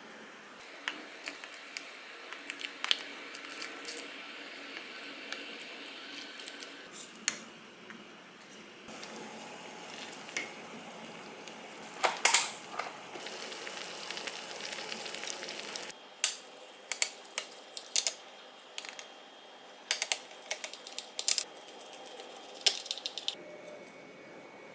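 Korean spicy tofu stew bubbling and sizzling in an earthenware pot on a gas burner. Scattered clicks and taps of utensils and ingredients go into the pot. In the later part come sharper taps and clicks as a knife cuts rolled omelette on a ceramic plate.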